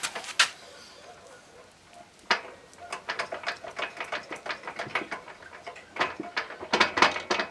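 Irregular metallic clicks and knocks from a walk-behind tractor's wheel and half-shaft assembly being moved to check for play, several clicks a second, with a sharper knock a little over two seconds in.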